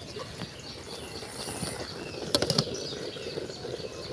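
Steady low background noise with a few short light knocks or clinks about two and a half seconds in.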